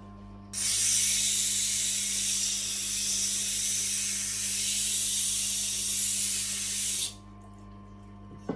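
Knife blade held against the turning wheel of a Tormek sharpener: a steady hiss of steel being ground for about six and a half seconds, stopping abruptly, over the low hum of the running machine's motor.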